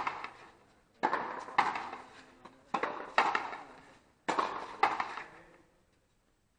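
Frontenis rally: strung rackets striking the hard ball and the ball smacking the fronton's front wall. Six sharp cracks in three pairs about half a second apart, each echoing off the walls.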